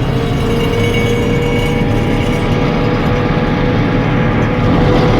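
Tar River drum mower running, a steady loud mechanical din with a constant whine through it, a little louder near the end; this is the odd noise the owner calls funny.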